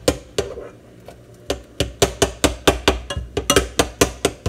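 Metal spoon knocking against the bottom of a pot as ramen noodles are chopped up in it: quick, even knocks about four or five a second, pausing just after the start and picking up again about a second and a half in.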